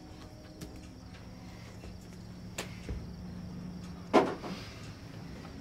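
Quiet kitchen room tone with a steady low hum and a few small handling clicks. About four seconds in comes one sharp knock, a drink can set down on a stovetop.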